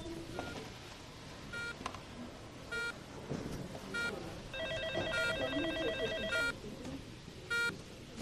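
Hospital ambience: an electronic beep repeating about once every 1.2 seconds, with a trilling electronic ring for about two seconds in the middle, over a faint murmur of voices.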